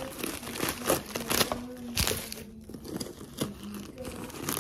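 Crumpled white stuffing paper crinkling and rustling in irregular bursts as it is pulled out of a small handbag.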